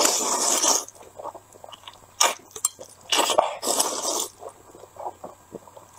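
A person slurping saucy instant noodles off chopsticks: two long, loud slurps, one at the start and one about three seconds in, with wet chewing and lip smacks between and after them.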